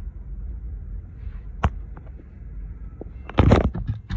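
A low steady rumble, with a sharp click about a second and a half in and a loud rustle and knocks near the end as the phone is moved around inside the car.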